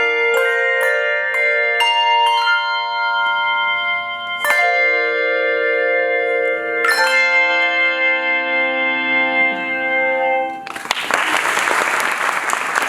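Handbell choir ringing chords: a quick run of struck chords, then two full chords about four and a half and seven seconds in that are left to ring. The last chord is damped about ten and a half seconds in, and applause breaks out.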